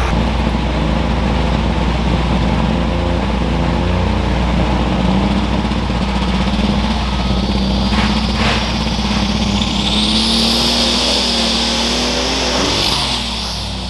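Turbocharged super stock pulling tractor engine running at the line. A thin, high turbo whine climbs from about halfway through, holds near the top, then falls away shortly before the end.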